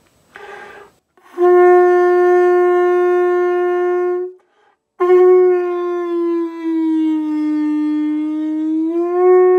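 Conch shell trumpet blown with brass-player lip buzzing: after a short breathy start, one steady note of about three seconds, then a longer note. The second note bends down in pitch and comes back up, which is how a hand inside the shell's opening shifts the pitch.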